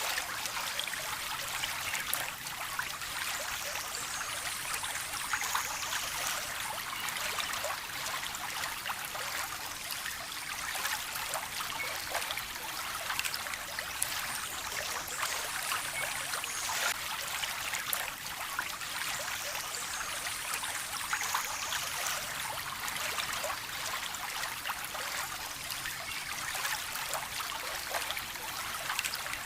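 Small stream of water trickling and splashing steadily over stones, a continuous bright babble with many small droplet splashes.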